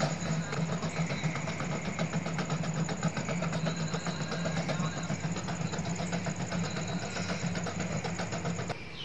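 A motor running steadily with a low hum and a rapid, even ticking. It cuts off abruptly near the end.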